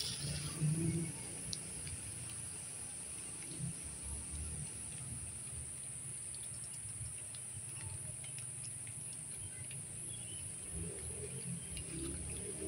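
A steady, high-pitched trill of insects in vegetation, over an uneven low rumble.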